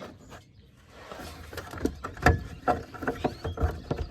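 Irregular plastic clicks and knocks as the factory fog light's harness and bulb socket on a Ford F-150 are twisted and worked loose by hand.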